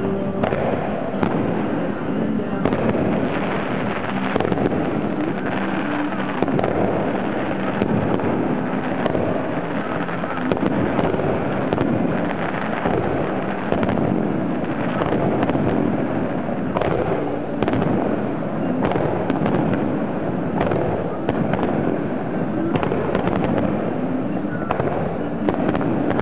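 Professional fireworks display heard close up from the firing site: a dense, unbroken barrage of shell launches and bursts, with many rapid, overlapping pops and bangs.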